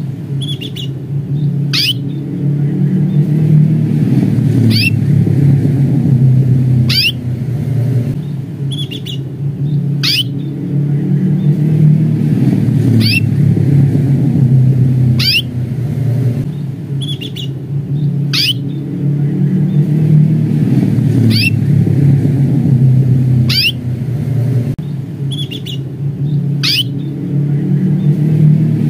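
Domestic canary giving short, high 'cuit' contact calls, one every two to three seconds, about eleven in all. A loud low rumble runs underneath throughout.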